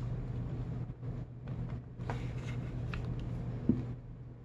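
A Glock 19 pistol being handled: a few faint light clicks, then a soft knock near the end, over a steady low hum.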